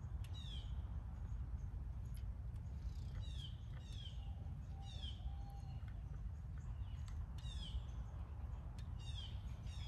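A songbird calling with short, high chirps that slide down in pitch, repeated about once a second over a steady low outdoor rumble, with a few faint clicks.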